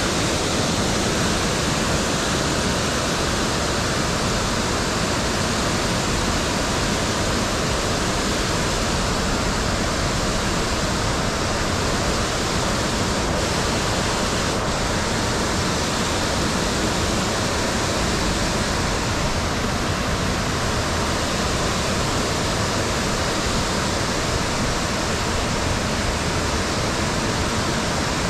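Water pouring over a low dam spillway and running past the rocks below it: a steady, loud rush that does not change.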